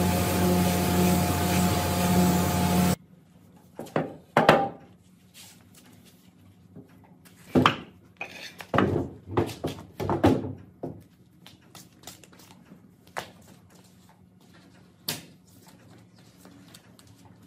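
A workshop machine runs with a steady hum and stops abruptly about three seconds in. Then come scattered knocks, thunks and clicks of wooden pieces and tools being handled, a dozen or so, some sharp.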